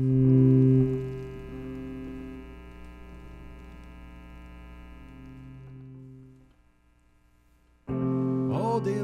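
Music: a held keyboard chord swells in, rings on steadily and fades away about six and a half seconds in. After a short near-silent gap a louder chord comes in near the end with a voice over it.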